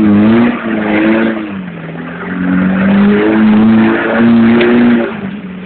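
Off-road buggy's engine revving hard in repeated bursts as it claws up a muddy slope, the pitch rising and falling with the throttle, then easing to a lower steady idle near the end.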